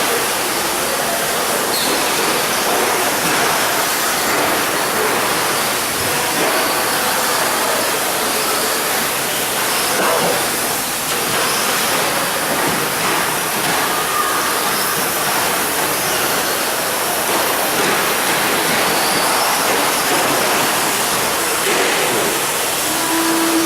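Several electric 2WD radio-control short course trucks racing off-road: a steady, dense rushing noise of motors, gears and tyres.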